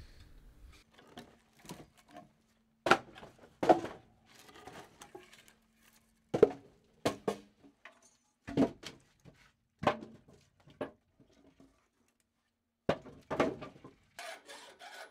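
Firewood logs being handled and stacked: a dozen or so separate wooden knocks at uneven intervals, some in quick pairs. Near the end a hand file starts rasping steadily on a workpiece held in a vise.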